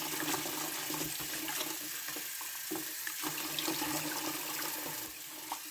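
Kitchen tap running steadily into a plastic basin of water while wild fennel is swished through it and lifted out by hand, with small splashes and drips.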